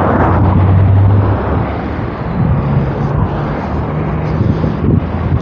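Road traffic: a motor vehicle's engine running close by, loudest in the first second or so, then easing into a steadier street rumble.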